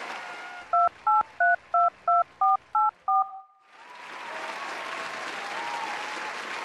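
Touch-tone telephone keypad dialing: eight short dual-tone beeps, about three a second, the last one held briefly. Crowd noise comes back in after the dialing.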